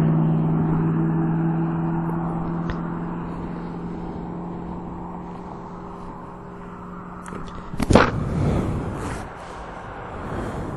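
Kawasaki Ninja motorcycle engine idling steadily while the bike coasts and slows, so the road and wind noise fade over the first several seconds. About eight seconds in, one loud knock.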